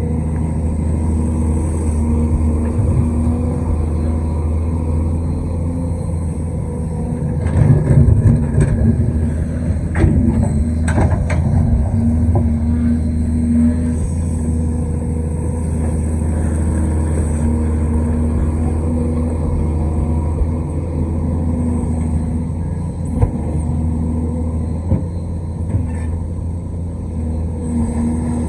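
A large excavator's diesel engine running steadily. From about seven and a half to eleven seconds in, a louder stretch of knocks and clanks comes from the machine at work.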